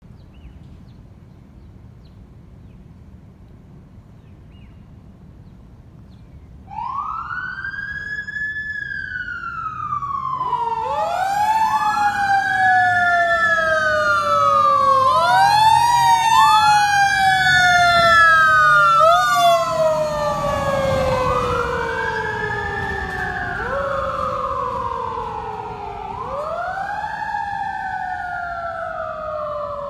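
Fire engine sirens wailing: about a quarter of the way in a siren starts, each wail rising quickly and falling slowly, soon overlapped by further wails. The sound grows louder as the engine approaches and passes, with a low engine rumble as it goes by, then eases off slightly as it moves away.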